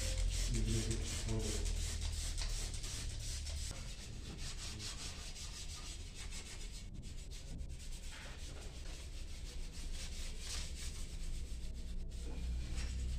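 Small detailing brush scrubbing cleaner into the textured, perforated side step of a Nissan Navara: a steady, fast, scratchy rubbing made of many short strokes.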